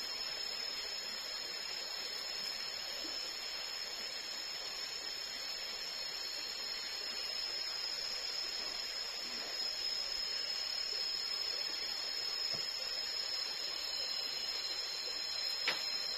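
Tropical forest ambience: a steady, high-pitched insect drone that holds without a break, with one sharp click near the end.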